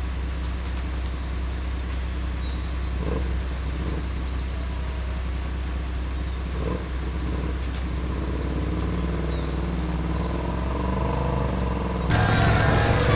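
Cruiser motorcycle engine running steadily at low revs while the bike is eased slowly over a step. About twelve seconds in, a louder short musical jingle cuts in.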